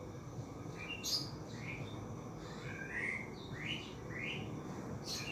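A small bird chirping over and over, short rising chirps about one to two a second, with two brief sharper high-pitched sounds, one about a second in and one near the end.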